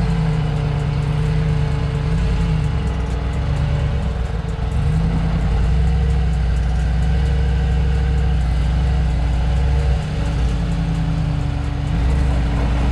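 Mercedes-AMG G63's 4-litre turbocharged V8 running steadily at low revs as the SUV crawls up a rocky slope, with small rises and dips in engine speed a few times.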